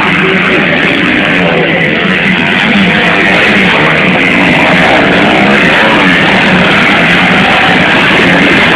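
Motocross dirt bikes revving hard as they come down the track and pass, their engine notes rising and falling without pause, loud and distorted.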